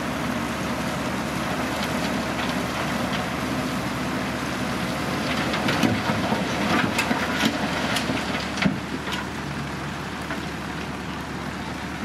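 Dump truck's engine running with its tipper bed raised as the load slides out, rocks and soil clattering from the back of the bed. The clatter of falling stones comes in a burst of knocks between about six and nine seconds in, the loudest part.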